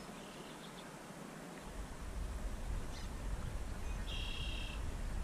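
Outdoor creekside ambience: a steady hiss with a low rumble on the microphone that comes in about a second and a half in. A short, high bird call of under a second sounds near the end, with fainter chirps early on.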